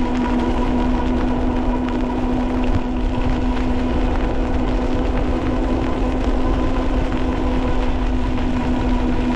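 Ariel Rider Grizzly e-bike ridden at a steady speed on a wet road: a steady hum from its hub motor over a constant rush of wind on the microphone and tyres on wet pavement.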